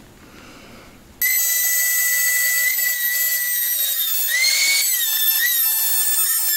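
Router with a 1/4-inch spiral up-cut bit cutting a circular hole in 5/8-inch plywood. Its high whine starts abruptly about a second in and holds steady, with the pitch dipping and wavering around the middle as the bit loads in the cut.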